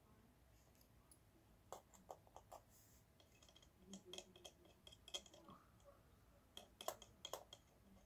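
Faint, scattered clicks and taps of small parts being handled at a battery-management circuit board and its thin wires, in several short clusters over otherwise near-silent room tone.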